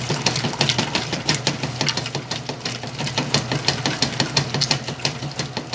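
Washing machine running through a wash of jeans: a steady low motor hum with frequent, irregular clicking and knocking.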